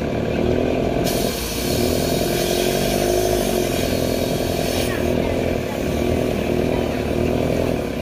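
Off-road truck engine revving hard and steadily. From about one second in to about five seconds in, a loud rushing hiss sounds over it.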